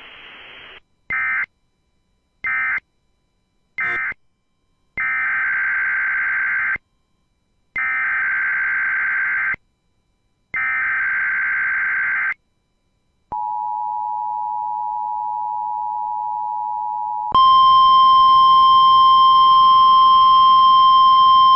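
NOAA Weather Radio emergency alert signals. First come three short digital data bursts, the end-of-message code, then three longer data bursts, the SAME header for a required monthly test. Then the steady two-tone attention signal sounds for about four seconds, and a louder, steady single-pitch weather radio warning alarm tone begins a little over halfway through.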